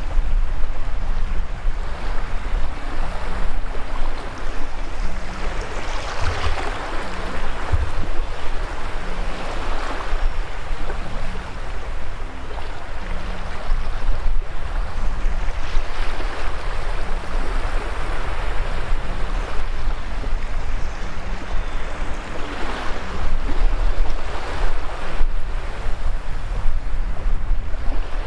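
Small waves washing up the sand at the water's edge, the wash swelling and falling every few seconds, over a constant low rumble.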